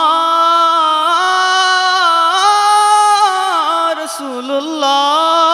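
A man's voice singing a Bengali naat, an Islamic devotional song, holding long wordless notes on a vowel with slow turns in pitch. About four seconds in, the line dips and wavers in an ornament before settling back.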